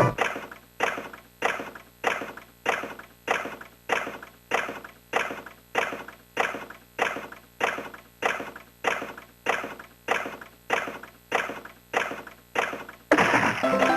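Retro Sankyo Fever Big Chime pachinko machine sounding a regular clacking strike about 1.7 times a second, each ringing briefly. About 13 seconds in, a louder electronic jingle starts.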